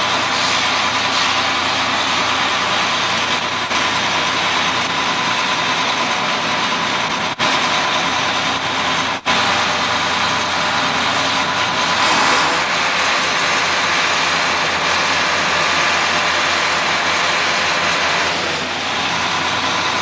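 Combine harvester diesel engines running steadily, with two very brief breaks about seven and nine seconds in.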